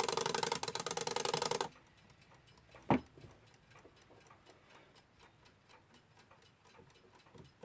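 Westclox Big Ben Style 1 alarm clock: the alarm hammer rattles rapidly on the bell and cuts off abruptly about a second and a half in, then a single knock about three seconds in, and the freshly oiled movement ticking softly and evenly, about five ticks a second, full of life.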